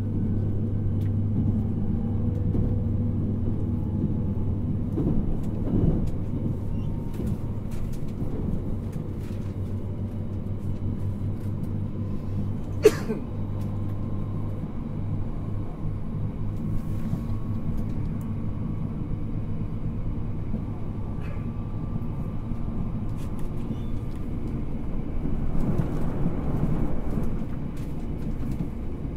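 Running noise of a JR Hokkaido 789 series 1000 subseries electric train heard from inside the cabin of a motor car: a steady low rumble and hum from the wheels and running gear, with one sharp knock about 13 seconds in.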